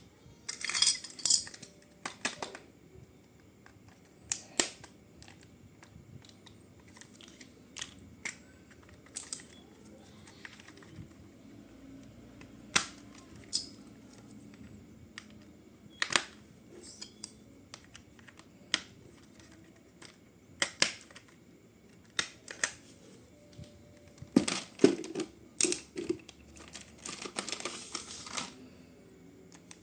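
Unboxing handling noise: irregular sharp clicks and taps of toy parts and packaging being handled, with a longer rustling crinkle near the end.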